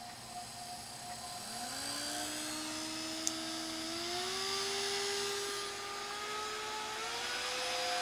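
Hair dryer's small DC motor and impeller spinning up: its whine climbs in steps, about a second and a half in, again near four seconds and near seven seconds, as the supply voltage is turned up, with a growing rush of air. A single sharp click about three seconds in.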